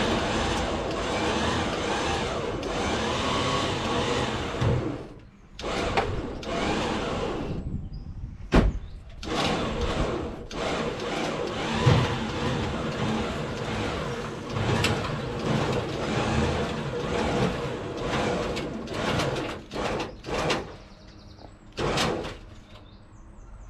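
Recovery truck's winch hauling a small car up the tilted flatbed, running in several long pulls with short stops between them. A couple of sharp clunks stand out, about eight and twelve seconds in.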